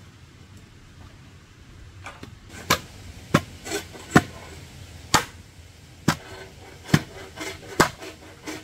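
Repeated hard blows from a hand tool, about one a second, beginning about two seconds in, with lighter knocks between and a slight ring after some strikes.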